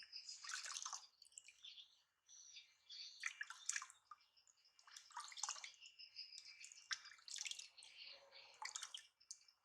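Water splashing and dripping in irregular bursts as a baby is showered with warm water.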